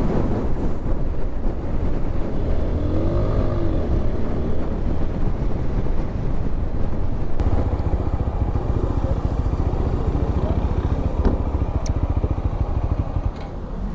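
TVS Apache RTR 160 4V single-cylinder motorcycle running steadily on the move, with heavy wind rumble on the microphone.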